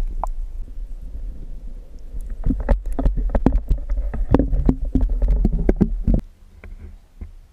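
Underwater sound of a marine iguana grazing algae off a rock: a low rumble of moving water, with a dense run of sharp clicks and scrapes from about two seconds in that stops suddenly about six seconds in.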